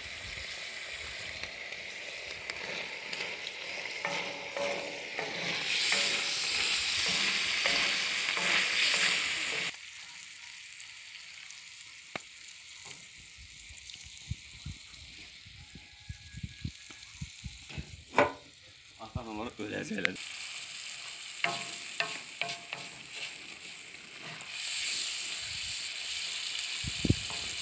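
Meat and sliced onions sizzling in fat on a sac, a wide iron griddle over wood embers, while a wooden spoon stirs and scrapes against the iron. The sizzle is loud for about the first ten seconds, drops away abruptly to a quieter stretch of spoon scrapes and knocks, and comes back loud near the end.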